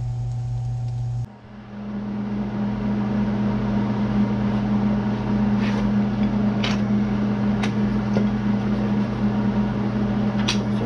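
Steady low machine hum with a noisy haze over it, and a few sharp clicks scattered through the second half.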